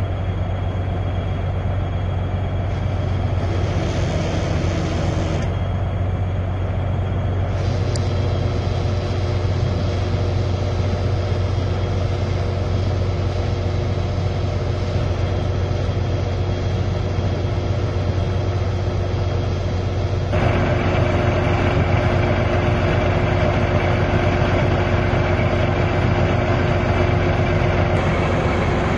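A large machine or engine running steadily with a deep hum. The sound shifts abruptly about twenty seconds in to a brighter, noisier running sound.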